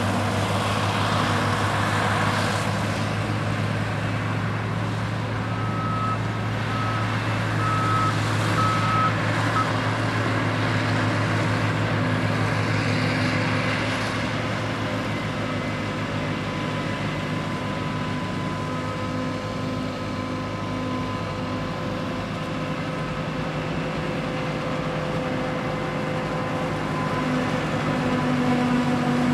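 New Holland FX48 forage harvester chopping maize under load, with a John Deere 6910 tractor running alongside: a steady engine drone. About six seconds in, a high electronic warning beeper sounds several short beeps a little under a second apart, and the machinery gets somewhat louder near the end.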